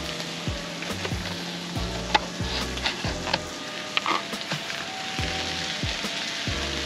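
Food sizzling and frying in a hot King Kooker wok, a steady hiss with scattered sharp clicks and short knocks.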